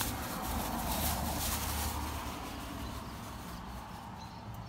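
Protective plastic bag being ripped open and crinkled by hand, a dense crackling rustle that thins out after about three seconds.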